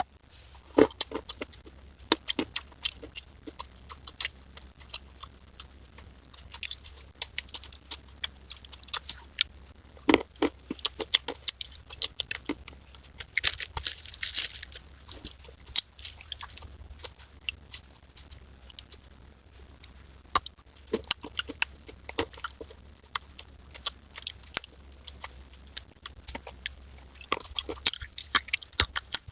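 Edible clay being bitten and chewed close to the microphone: dense, irregular crunching throughout. A steady low hum runs underneath.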